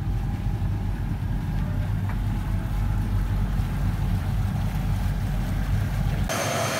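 Speedboat engine running steadily, a deep even engine sound as the boat moves across the lagoon. Near the end it cuts suddenly to the higher, hissing whine of turboprop aircraft engines.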